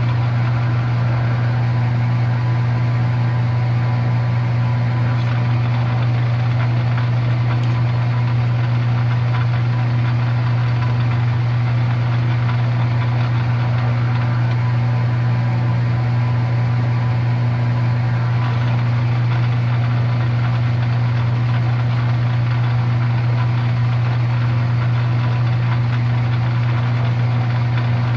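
Metal lathe running steadily in back gear, a constant motor hum, while a reamer is fed a little at a time into a 5/8 by 3/4 bushing.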